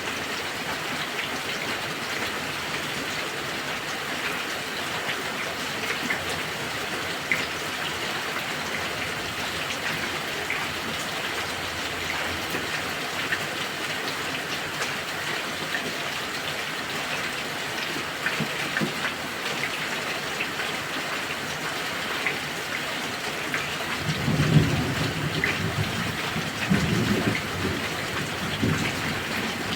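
Heavy rain pouring steadily, with drops pattering on a surface. Near the end thunder rumbles low in two or three rolls.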